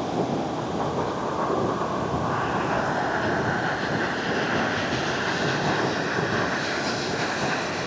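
Ocean surf: a steady rush of waves that grows brighter and fuller about two seconds in.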